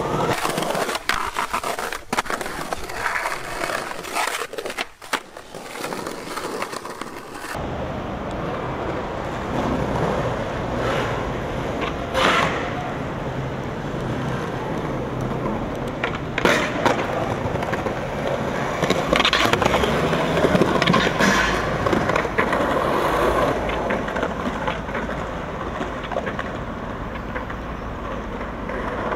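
Skateboard wheels rolling over smooth concrete, a steady grinding rumble, with several sharp clacks of the board on the ground.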